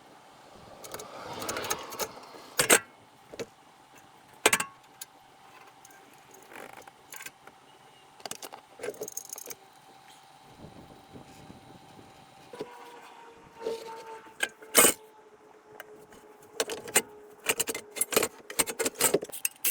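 Scattered metallic clinks and knocks from tools and parts being handled during work on a truck, a few of them sharp and loud, with a quick run of clinks near the end. About two-thirds of the way in a faint steady hum starts and carries on.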